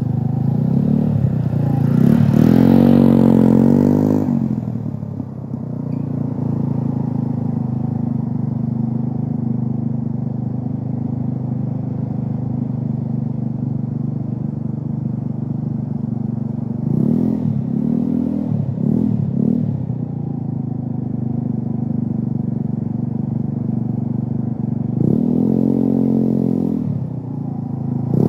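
A steady low engine-like hum, with a vehicle passing three times, its pitch rising and falling as it goes by: loudest about two to four seconds in, again briefly past the middle, and near the end.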